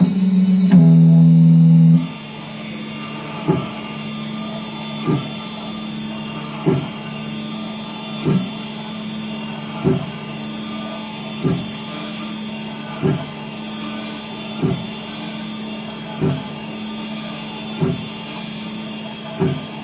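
Small CNC IC engraving machine's spindle running as it grinds down an iPhone storage chip. For the first two seconds it runs louder with a strong low tone; then it settles to a steady hum with a short swell repeating about every second and a half.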